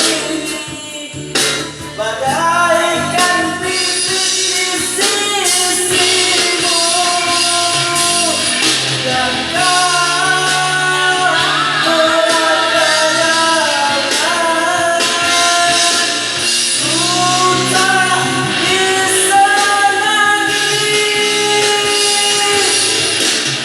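A singer's voice carrying a sustained melody over instrumental accompaniment with a steady bass line.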